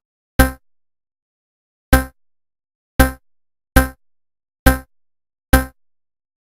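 Six short electronic musical stabs, each a single pitched hit that fades within a fraction of a second, with dead silence between them, about a second apart and coming a little faster toward the end.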